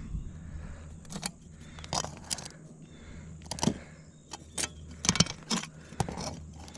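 Irregular light clinks and scrapes of metal hand tools, a speed square and putty knife, against asphalt roof shingles as a shingle tab is lifted to check its angle.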